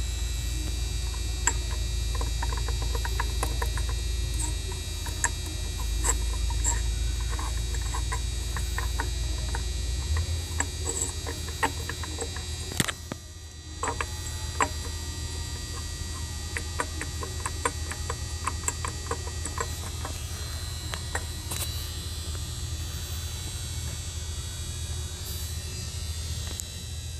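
Turbocharged car engine running with a steady low drone and irregular ticking and clicking throughout; the drone changes about ten seconds in. The sound is the sign of a badly failing turbocharger.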